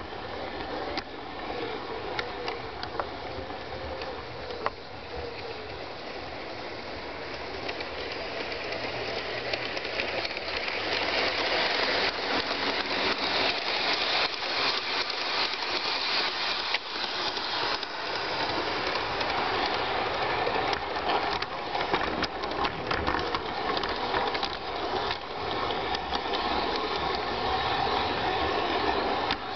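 LGB garden-scale model train running along outdoor track, heard from on board: a steady rattle with many small clicks of the wheels over the rails. It gets louder about ten seconds in.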